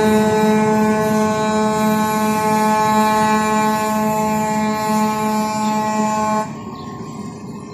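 Air horn of a rail maintenance-of-way machine blowing one long steady blast that cuts off about six and a half seconds in.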